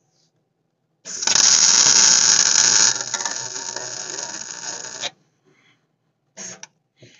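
Electric welding arc buzzing and crackling for about four seconds. It starts and stops abruptly and is loudest for the first two seconds. Weld is being built up on a broken exhaust manifold bolt to attach a nut to it.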